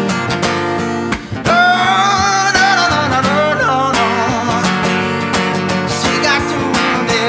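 Live acoustic guitar strummed in a steady rhythm, with a man's voice coming in about one and a half seconds in to sing a long, wavering wordless run for a couple of seconds.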